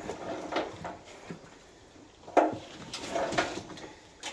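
Knocks, scrapes and clunks of a fuel tank being worked into place in a Land Rover Defender's chassis, with a sharp clunk about two and a half seconds in.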